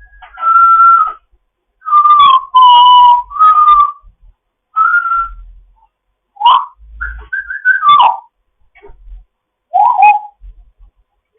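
African grey parrot whistling a string of short notes, about eight in all, some held steady and some sliding up or down, with short pauses between them.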